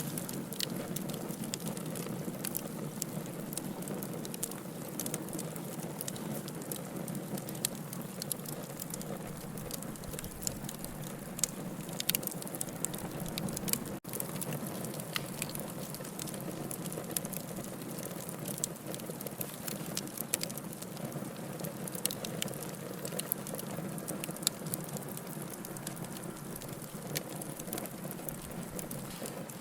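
Wood fire burning in a fireplace: a steady low rush of flames with frequent sharp crackles and pops, a few of them louder.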